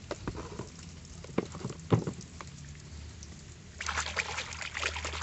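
A few light clicks of plastic toys knocking together, then, near the end, a hand splashing and swishing a toy about in a muddy puddle of water.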